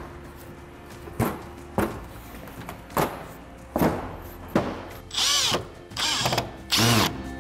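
Cordless drill driver whirring in two short bursts, about five and seven seconds in, each rising and falling in pitch as it drives a washered screw into insulated tile backing board. A few sharp knocks come before it.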